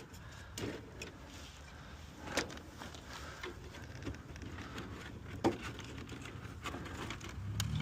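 Scattered light clicks and rustles of wires and spade connectors being handled at a furnace control board, a few sharper clicks among them, over a low steady hum.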